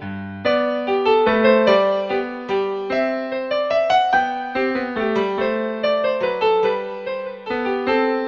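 Piano music: a steady run of struck notes and chords.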